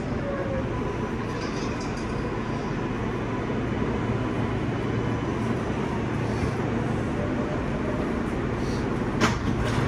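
New York City Subway L train in motion, heard from inside the car: a steady rumble of wheels on the rails, with one sharp clank about nine seconds in.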